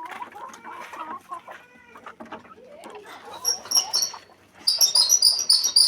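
Chickens calling, with a rapid run of short, high-pitched cheeps starting about halfway through and loudest near the end.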